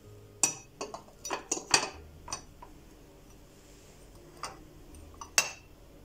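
Sharp clinks and knocks of hard objects, about eight in quick succession in the first two and a half seconds, then a few more near the end.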